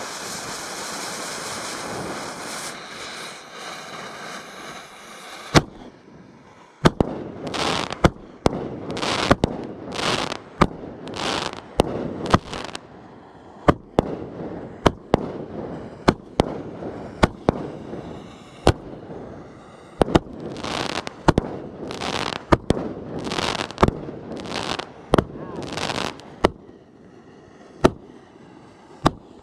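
A multi-shot firework cake firing: after a few seconds of hiss, its tubes launch one after another, each a sharp pop followed by a short rushing hiss, about one a second.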